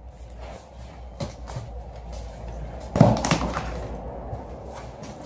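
Cardboard fruit box being opened by hand: flaps knocking and rustling, with one loud knock about three seconds in.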